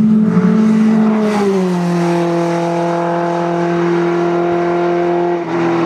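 Open-cockpit sports-racing car's engine running hard as the car goes by, a loud steady note that drops in pitch about a second and a half in and then holds as the car pulls away, dropping again near the end.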